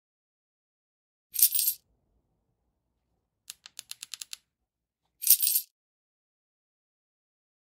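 Sound effects added in editing: two short, hissy high-pitched bursts, about four seconds apart, with a quick run of about eight faint ticks between them, over dead silence.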